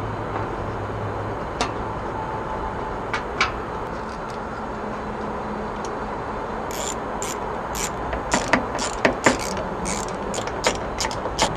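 Metal tool clicks and clinks as a compressor bleed valve is fastened onto a PT6A-67P turboprop engine: a few scattered taps in the first half, then a quick run of sharp ratchet clicks as the mounting bolts are driven in. A steady background hum runs underneath.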